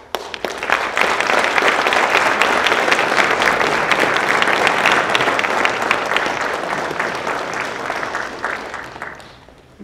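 Audience applauding, starting abruptly, full within about a second, then thinning to scattered claps and dying away near the end.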